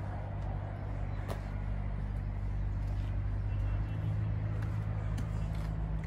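MAN TGS lorry's diesel engine idling with a steady low hum, rising slightly in pitch and level about four seconds in.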